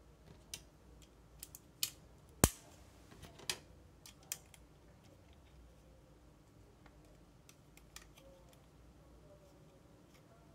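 Plastic LEGO bricks clicking as they are handled and pressed together: several scattered clicks over the first four seconds, the sharpest snap about two and a half seconds in, and one faint click near eight seconds.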